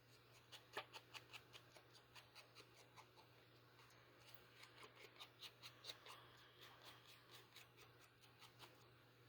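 Faint, quick, light strokes of ink being applied to the edges of a paper bird cut-out, about four a second. They come in two runs with a short pause after about three seconds.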